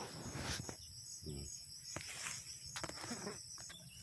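Insects chirping steadily in a high, evenly pulsing trill, with soft rustling and handling noises over it.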